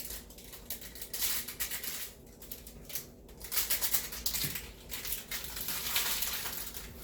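Dry, crinkly rustling and light ticking of small food packets being handled, in uneven spells.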